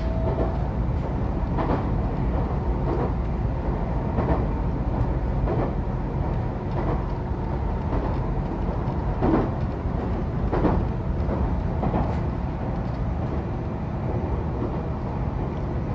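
JR Central 313 series electric multiple unit running at speed, heard from on board: a steady low rumble with the wheels clacking over rail joints about every second and a bit.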